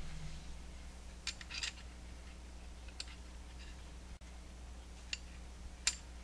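A few short, sharp clicks and clinks of small metal parts being handled, the loudest near the end, over a faint steady low hum.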